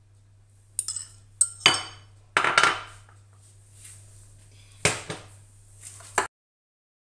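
A kitchen utensil knocking and scraping against a dish, in a few sharp clinks and longer scrapes, while tomato sauce is mixed into a mashed egg-yolk and tuna filling. The sound cuts off suddenly near the end.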